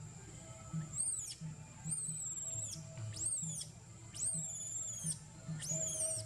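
Baby macaque crying in distress: about five high-pitched cries, each rising and then falling, two of them drawn out. It is crying because its mother is weaning it and refusing it milk.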